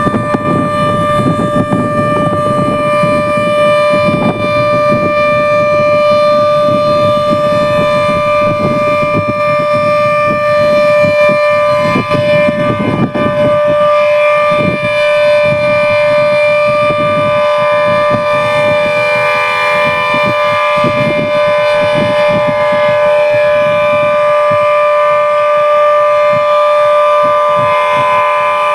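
Warning siren sounding one steady, unwavering tone, a drill rather than a real alert. A low rumbling noise underneath thins out about halfway through.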